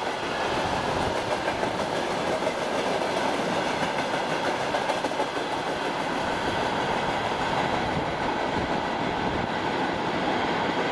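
Freight train of railway tank cars rolling past: a steady noise of steel wheels running on the rails.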